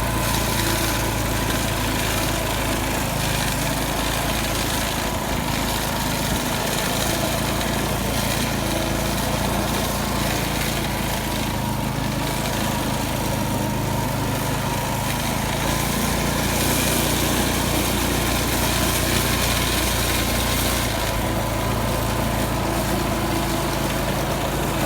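A snowblower's small gasoline engine running steadily, with no breaks.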